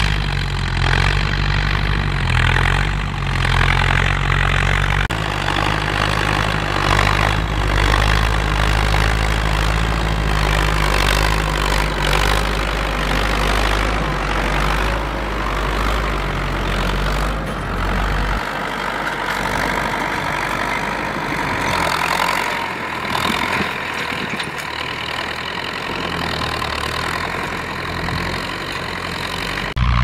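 Ford farm tractors' diesel engines running steadily under load as they blade and plough soil. The low engine note changes abruptly about 5 seconds and 18 seconds in.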